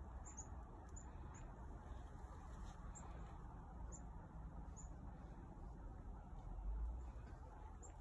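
Faint, high, short chirps from a small bird, about eight single notes a second or so apart, over a low rumble that swells briefly near the end.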